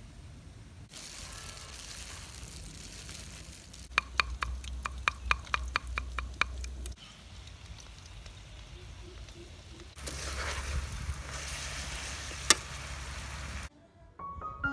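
Cooking sounds in short edited clips while gac fruit and glutinous rice are prepared over a wood fire. A steady hiss gives way to a run of quick sharp taps, about five a second for some three seconds, then a louder hiss with one sharp crack near the end.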